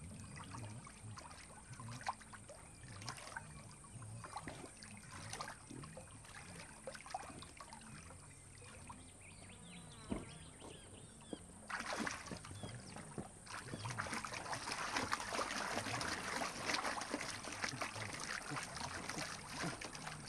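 Water splashing around a wildebeest struggling in a river in a crocodile's grip: quiet lapping and small drips at first, then louder, continuous splashing from a little past halfway, as the wildebeest heaves itself up out of the water.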